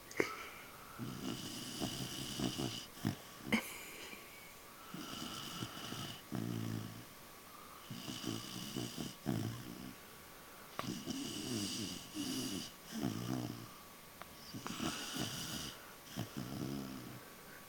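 Five-month-old pit bull puppy snoring in her sleep: a snore on each in-breath and a shorter one on each out-breath, about one breath every three and a half seconds.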